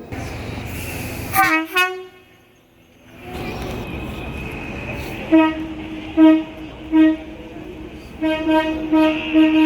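Train horn sounding three short toots, then a longer run of quick blasts on one steady pitch, over the rumble of a train. A brief horn sound about a second and a half in comes before a short drop in level.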